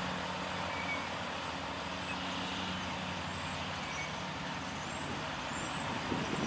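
Steady outdoor background noise with a faint low hum and a few faint, short high chirps. No siren tone is heard.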